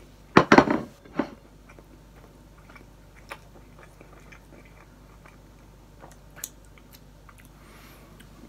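A man chewing a mouthful of bacon cheeseburger pizza, with crispy bacon and hamburger meat. A short, loud cluster of knocks about half a second in, then a few faint clicks.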